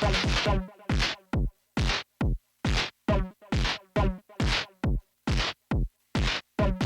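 Percussive hits synthesized on Arturia's MS-20 V software synthesizer, played in a repeating drum-machine-like pattern of about two or three a second with silence between. Each hit sweeps quickly down in pitch from a bright hiss to a low thump.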